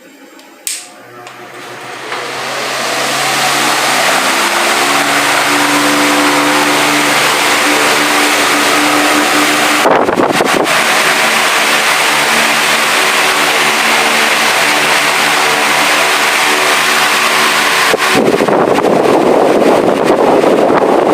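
Vitalex wall fan switched on with a click, its motor spinning up over about three seconds to a steady hum under rushing air from the blades. About ten and eighteen seconds in, a click comes and the sound changes, the air noise growing fuller after the second.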